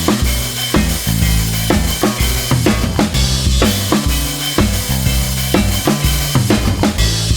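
Background music with a steady drum-kit beat: kick, snare and rimshot over a bass line.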